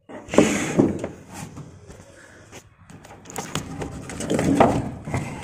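Irregular knocks, clacks and scraping of hard plastic against the washing machine tub as the buffer is worked onto the pulsator shaft hub. There are two louder clusters, one just after the start and one about four and a half seconds in.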